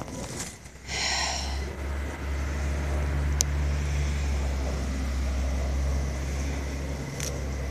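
A motor vehicle passing on the road, a steady low engine rumble that swells about a second in and fades near the end.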